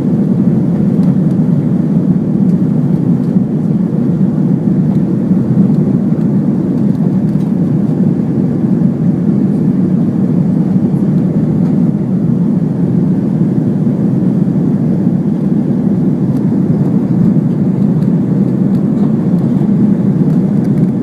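Steady engine and airflow noise of an Airbus A330-300 heard inside the passenger cabin after take-off: an even, low rumble that doesn't change.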